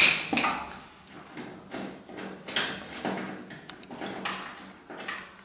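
Hand work on an ATV exhaust: a loud knock at the start, then a string of metallic clicks, knocks and short scrapes as parts are handled.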